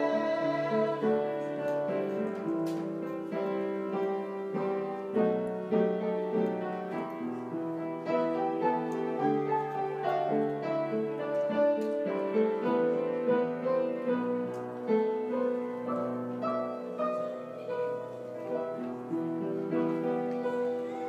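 Instrumental piano music with held chords and a melody moving over them.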